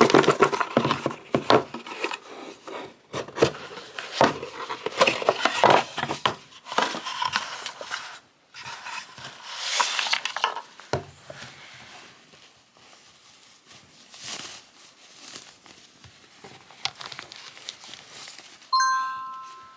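Crinkling and rustling handling noise with many small clicks and knocks, busy at first and sparser later; near the end a short tone sounds once.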